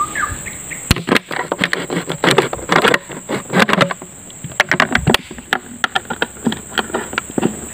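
Thin plastic water bottle crackling and crunching as a blade cuts and pries into it: a dense, irregular run of sharp crackles.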